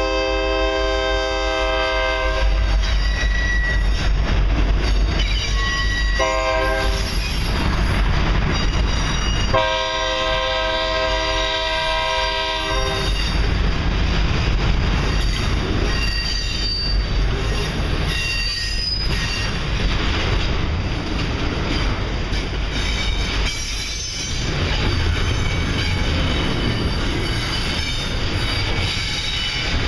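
A passing freight train's diesel locomotive air horn sounds three chords: one ending about two seconds in, a short one around six seconds and a longer one from about ten to thirteen seconds. Beneath them and after them comes the loud steady rumble and rail clatter of a long double-stack container train rolling by close, with some faint wheel squeal.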